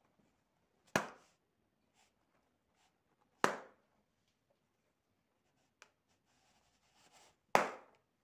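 Three sharp pops, about a second in, at about three and a half seconds and near the end: small balloons bursting as they are pricked with a pin.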